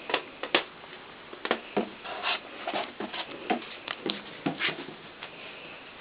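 Irregular light taps and bumps, a dozen or so spread over about five seconds, as a cat bats and paws at a rubber balloon.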